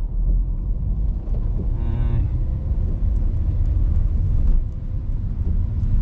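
Inside the cabin of a small Honda car driving on a wet road, a steady low rumble of road and engine noise. About two seconds in, a brief pitched sound lasting under a second rises over it.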